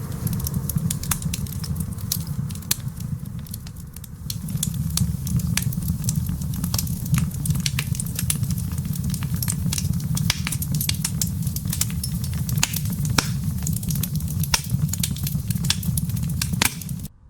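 Wood fire crackling, with irregular sharp pops and snaps over a steady low rumble of wind. It goes a little quieter for a couple of seconds early on, then picks up again and cuts off abruptly near the end.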